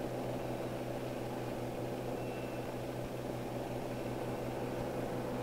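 A steady low hum under an even hiss, with no distinct events.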